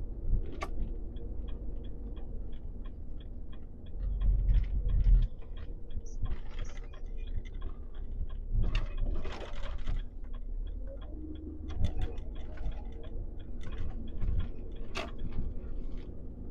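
Truck's turn-signal indicator ticking steadily, about three ticks a second, over the low rumble of the diesel engine in the cab. Midway there is a brief hiss.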